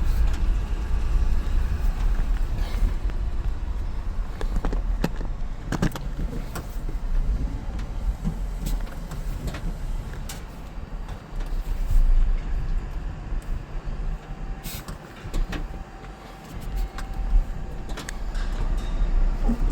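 Vehicle engine running with a steady low rumble while the vehicle is moved into a parking space, with scattered clicks and knocks.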